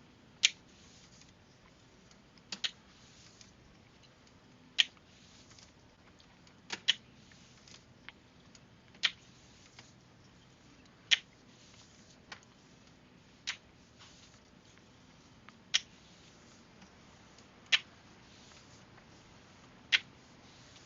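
Sharp, short clicks, about one every two seconds, some doubled, over a faint steady hum.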